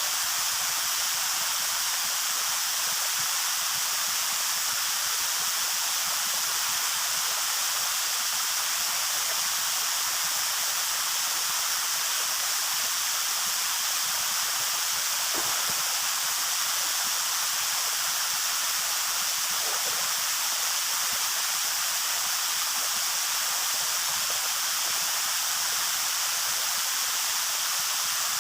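Waterfall: a steady, unbroken rush of falling water, mostly a high hiss.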